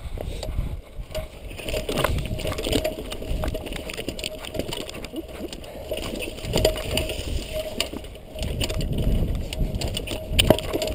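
Irregular rumbling, rustling and sharp knocks from a jostled, body-worn camera carried along a rocky trail.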